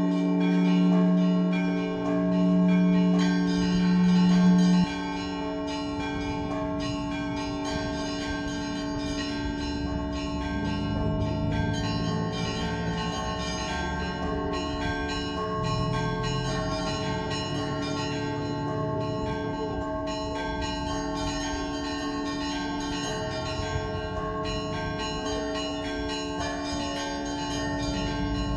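Orthodox church bells ringing together, small bells struck in quick succession over the sustained hum of larger bells. A deep bell's loud ringing stops abruptly about five seconds in, leaving the quieter, busier ringing of the smaller bells.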